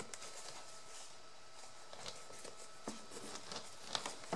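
Light clicks, taps and rustles of paper and cardstock craft pieces being handled, with a small cluster of sharper clicks near the end.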